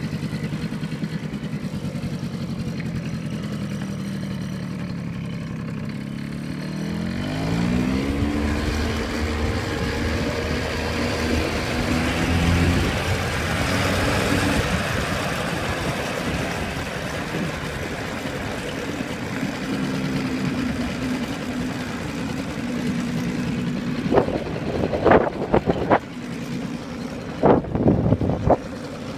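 Small Yamaha motor scooter's engine running while riding, rising in pitch as it accelerates about seven seconds in, then holding steady at cruising speed with wind rushing past. A few loud knocks near the end.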